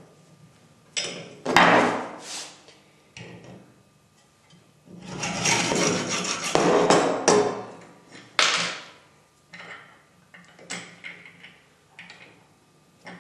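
Metalworking by hand at a small bench vise holding a brass rod: knocks and clanks of metal tools, with the longest and loudest stretch of rasping scraping from about five to seven and a half seconds in, then lighter clicks near the end.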